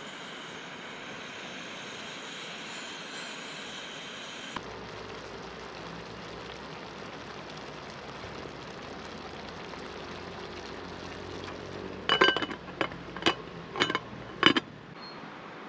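Steady hiss of a camping gas stove with pasta boiling in the pan, then a glass lid clinking five or six times against the pan near the end as it is set in place.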